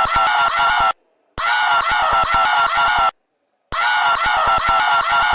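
Giant panda bleating: a rapid, pulsing, high call repeated three times, each call about a second and a half long with short gaps between them.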